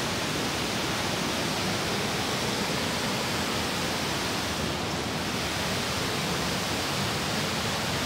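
Steady rush of a waterfall and its stream: a constant, even noise that does not change.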